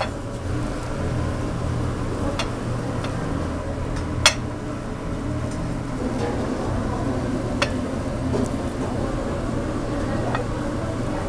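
Restaurant kitchen noise: a steady low hum and hiss, with a few sharp clinks of utensils or dishes, the loudest about four seconds in.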